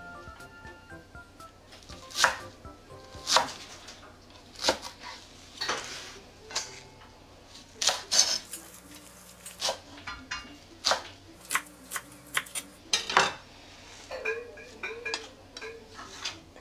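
Kitchen knife chopping perilla leaves on a wooden cutting board, in sharp, irregularly spaced strokes about once a second.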